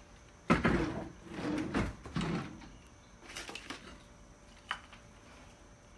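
Workshop handling noises: a sharp knock about half a second in, then a few knocks and scrapes of things being moved, and a short click near five seconds.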